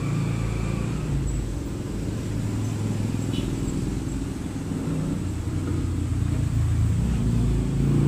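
Low, steady engine rumble of motor vehicles, a little louder near the end.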